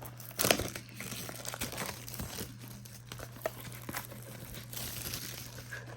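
Crinkling and tearing as the wrapping of a trading-card blaster box is torn open, with a sharp tear about half a second in and then repeated small crackles, over a steady low hum.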